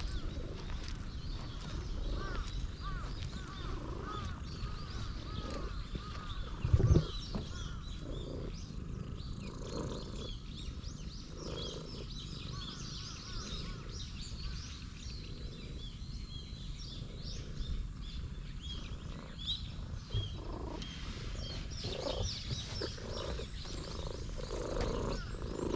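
A stray cat purring loudly, a steady low rumble, while birds chirp in the background. One loud thump about seven seconds in.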